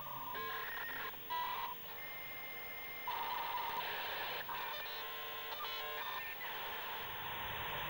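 Dial-up modem connecting: bursts of steady dialling and handshake tones, a single held high tone about two seconds in, then a hissing rush of noise from about three seconds on as the modems negotiate the link.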